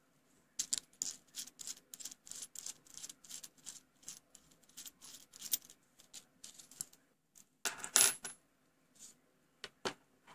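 Knurled metal nut on a Hakko 907-clone soldering iron handle being unscrewed, its threads giving a fast run of small metallic clicks and scrapes. About eight seconds in, the metal sleeve and tip slide off the ceramic heating element with a louder brief scrape, followed by two single clicks.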